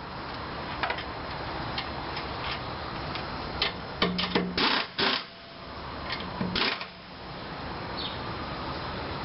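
Metal clicks and clinks of lug nuts and tools, then a few short bursts from an air impact wrench snugging the lug nuts onto the steel wheel, mostly about halfway through.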